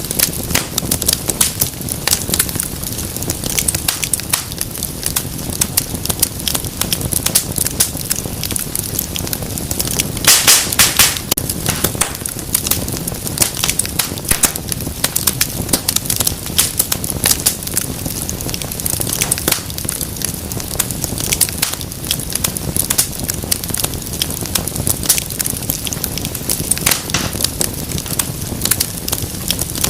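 Wood fire in a fireplace crackling, with steady sharp pops over a low rush of flame and a brief flurry of louder pops about ten seconds in.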